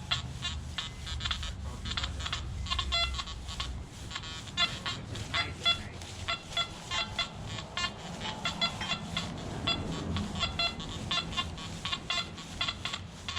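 Nokta Anfibio metal detector sounding rapid, irregular beeps of varying pitch as the coil passes over buried metal; the target turns out to be a nail.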